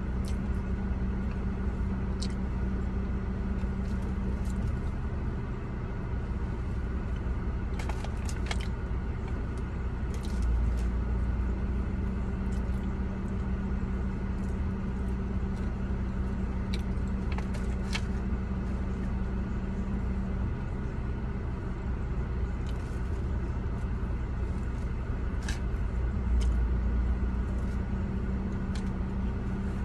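Steady low hum of an idling car heard inside the cabin, with a few light clicks and scrapes of a plastic fork against a foil food tray.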